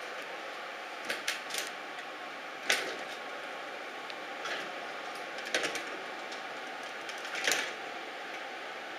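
Steady hiss of room tone with irregular light clicks and taps scattered through it, the sharpest nearly three seconds in.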